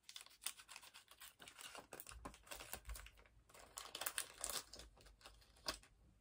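Faint crinkling and rustling of a small plastic pin packet being cut open with scissors and unwrapped, with many small clicks and snips.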